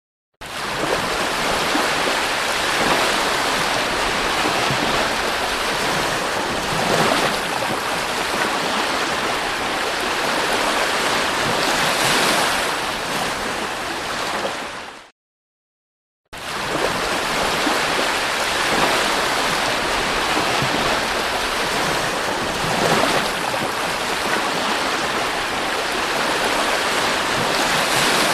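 Ocean surf rushing onto a beach, a steady wash that swells every four or five seconds. It cuts to silence for about a second halfway through, then picks up again.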